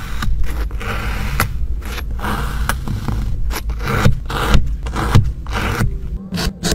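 Metal tools cutting, scraping and poking into a bowl of packed kinetic sand. A run of short grainy scrapes and crunches, separated by brief pauses between strokes.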